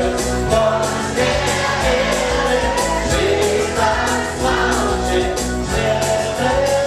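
Loud music with a voice singing over a steady beat and heavy bass.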